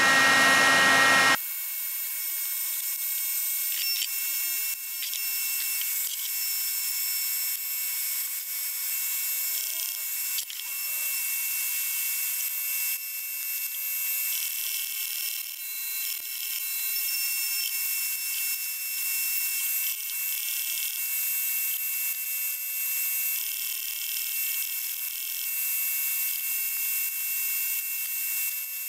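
Electric heat gun running with a steady high whine, preheating a cracked cast-iron Kubota D1105 diesel cylinder head. Over it, a nickel rod stick-welding arc hisses and crackles in spells as the crack is welded up. The first second is louder, before a cut.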